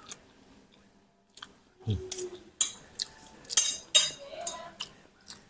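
A metal spoon and fork clinking and scraping against a plate while food is cut and scooped. The clicks come as an irregular series of about ten sharp strikes, starting about two seconds in.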